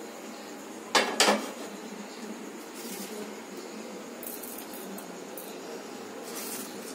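Two sharp clinks of glass kitchenware about a second in, then faint light clatter of bamboo skewers being picked up.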